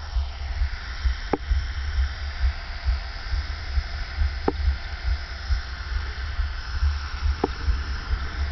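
HK450 electric RC helicopter (a T-Rex 450 clone) hovering, its brushless motor and rotor making a steady whine, under heavy wind rumble on the microphone.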